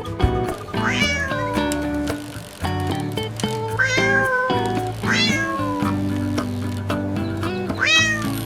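A cat meowing four times, each meow rising then falling in pitch, over background music with steady held notes.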